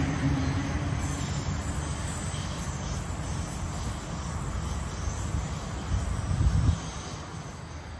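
A Sydney Trains Waratah double-deck electric train rumbling away along the track, its wheel-on-rail noise fading as it recedes, with a faint whine dying out in the first second. A brief low rumble swells about six seconds in.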